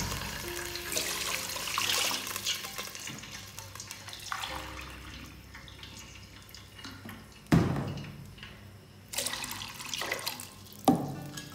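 Water poured from a plastic bottle into a plastic cup and tipped into a steel pot, measuring out the water for biryani rice. Two sharp knocks, about two-thirds through and near the end.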